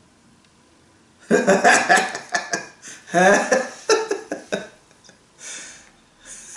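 A woman laughing in a run of loud bursts starting about a second in, followed by a breathy exhale.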